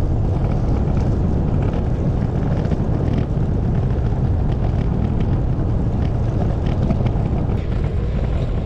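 Steady low wind rumble buffeting the microphone of a camera riding along on a moving bicycle.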